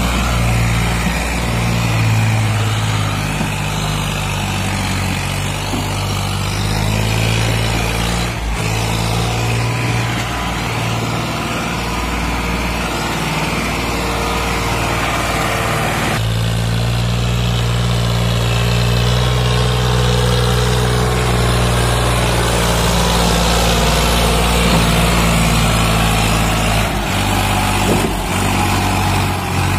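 Farmtrac 60 tractor's diesel engine running under load while hauling a fully loaded trolley, a steady low hum. The engine note shifts abruptly about halfway through.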